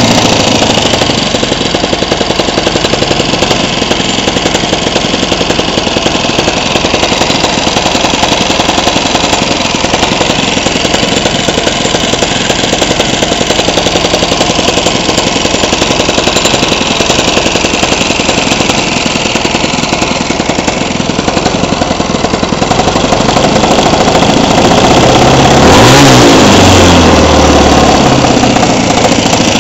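Modified Honda GX200 single-cylinder four-stroke engine on a go-kart, running steadily and loudly, then revved up briefly near the end.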